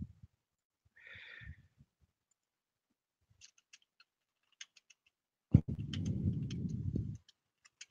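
Scattered clicks of a computer mouse and keyboard, with a low rumbling noise lasting about a second and a half from just past the middle.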